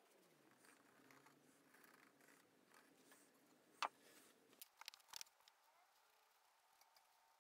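Quiet handling of a crosscut handsaw on a wooden bench: one sharp click a little under four seconds in as the saw is lifted off the paper, then a quick cluster of small clicks and knocks about a second later.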